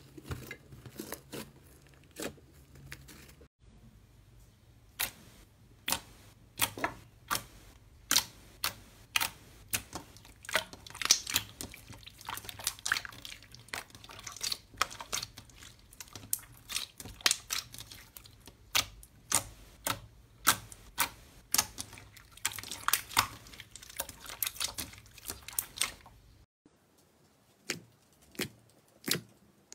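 Hands squeezing and pressing slime, making a series of short, sharp clicks and pops, roughly one or two a second and irregular, with a quieter stretch near the end.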